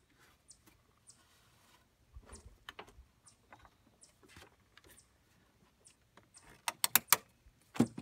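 Scattered light clicks and knocks of plastic and metal engine-bay parts being handled as a wiring harness, lines and small bolts are refitted by hand. A quick run of four or five sharp, louder clicks comes near the end.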